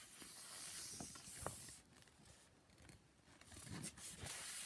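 Rolled paper poster rustling as it is drawn off a cardboard tube and unrolled: a soft hiss of sliding paper, with a light tap about a second and a half in. It goes quieter in the middle, then rustles again near the end.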